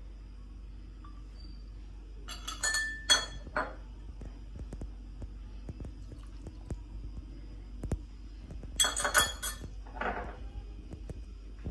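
Kitchen utensils clinking against dishes in two short bursts, about two seconds in and again near nine seconds, each strike ringing briefly.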